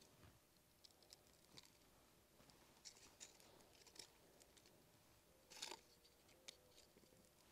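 Near silence, with a few faint scattered clicks and crackles as dry grass tinder catches from a lighter flame under split kindling; the loudest click comes about five and a half seconds in.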